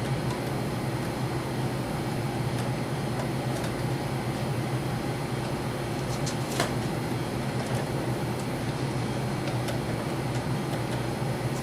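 A steady low mechanical hum, like a running appliance or fan motor, with a few faint clicks and taps as a rifle scope is turned in its mounting rings to level the crosshair.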